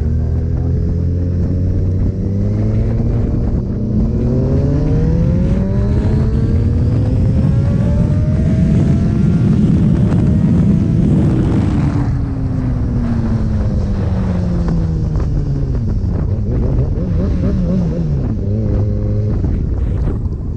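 Kawasaki Ninja ZX6R inline-four engine accelerating hard through the gears, its pitch climbing in steps to a peak about halfway through, then falling as it slows down, with wind rushing over the microphone.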